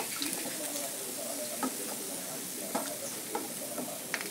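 Hot frying oil sizzling steadily in a wok as golden-fried fish pieces are lifted out to drain, the heat just turned off, with a few sharp clicks of metal tongs against the slotted metal strainer and pan.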